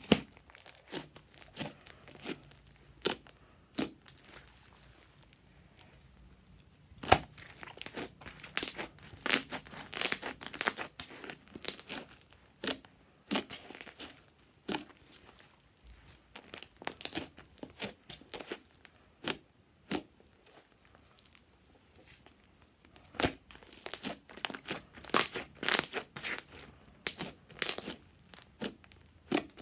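Hands squeezing, pressing and stretching a large mass of fluffy slime, giving off sticky crackling and popping in irregular clusters, with quieter stretches in between.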